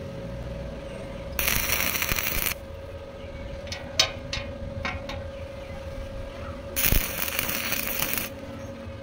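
Two short bursts of stick-welding arc crackle, each about a second long, as the hex nuts are tack-welded onto a threaded steel rod. Between the bursts come a few light metallic clicks from the rod and nuts being handled on the steel table. A faint steady hum runs underneath.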